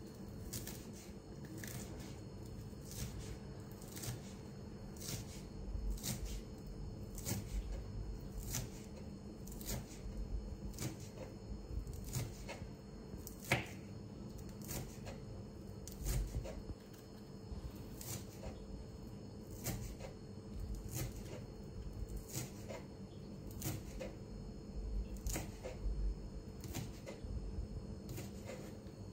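A knife chopping green onion on a wooden cutting board: slow, even chops about every half second, each a light knock of the blade on the wood, with one louder chop around the middle.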